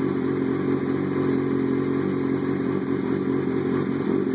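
Kawasaki ZX6R motorcycle's inline-four engine idling steadily.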